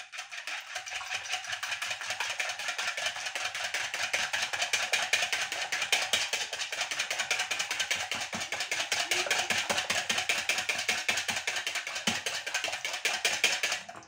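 Fork beating eggs in a plastic bowl: rapid, even clicking strokes of the fork against the bowl, which stop abruptly near the end.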